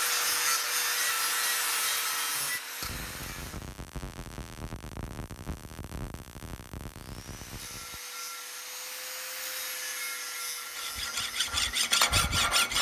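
Angle grinder running against steel, then the crackle of a Lincoln SP-135 Plus MIG welder laying a bead, then steady grinding again, ending in rapid rhythmic scraping strokes on metal.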